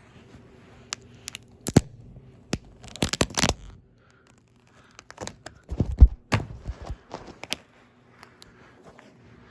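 Toy cars cracking and crunching under a shoe being pressed down on them, in two bouts of sharp snaps with a heavy thump in the second.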